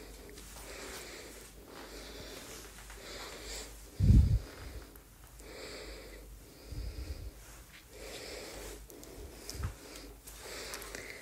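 Soft breath-like noise close to a phone microphone, swelling and fading about once a second. A loud low thump comes about four seconds in, with softer ones later: the phone being handled.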